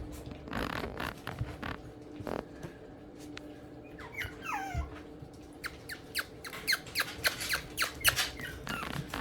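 Yorkshire terrier puppies squeaking and whimpering: a few falling squeals about four seconds in, then a quick run of short high squeaks and ticks.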